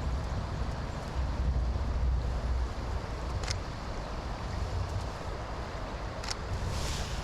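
Wind buffeting the microphone in an uneven low rumble over a steady hiss of rain and wind in the trees, with two brief sharp ticks, about three and a half and six seconds in.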